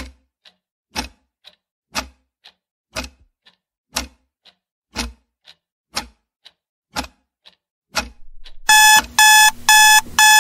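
Countdown-timer sound effect: a clock ticking once a second with a softer tock between each tick. About nine seconds in it gives way to loud alarm-clock beeping, about two beeps a second, signalling that the time is up.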